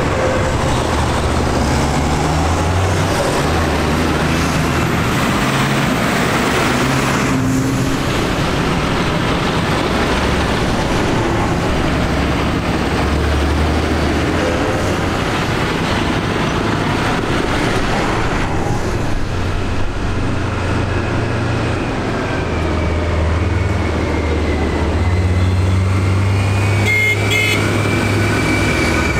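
Large diesel farm tractors driving past one after another, their engines running at a low note that shifts as each one goes by, over tyre hiss on a wet road. A thin whine rises near the end.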